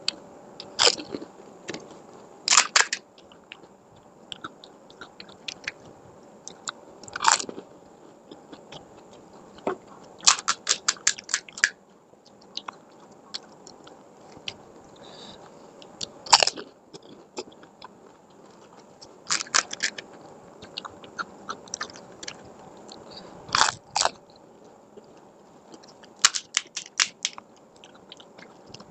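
Crisp fuchka (panipuri) shells being bitten and crunched, in clusters of sharp crackles every few seconds, with softer chewing between them.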